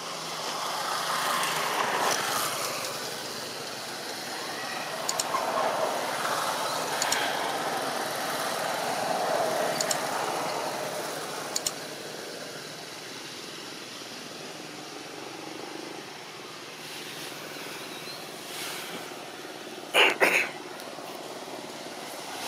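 Outdoor background noise with a vehicle passing, swelling over the first half and easing off. Two short, loud sounds come close together near the end.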